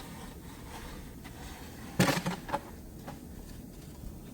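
Low room noise, with a short cluster of knocks and scrapes about two seconds in.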